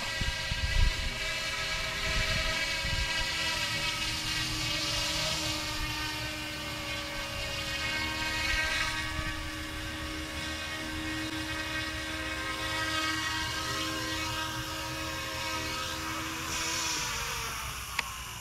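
Small electric RC helicopter (YXZNRC F09 Black Hawk) flying, its motor and rotor blades giving a steady high whine that shifts in pitch as it manoeuvres. About 17 s in the whine slides down as the helicopter lands and the rotor spools down, with a sharp click just after.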